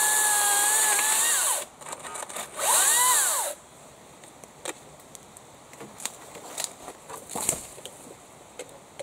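Makita 36 V (twin 18 V) brushless battery chainsaw whining at a steady pitch for about a second and a half, then a short second burst that rises and falls in pitch as the trigger is squeezed and let go. Afterwards, scattered cracks and snaps of twigs and brush underfoot, the sharpest a little after seven seconds in.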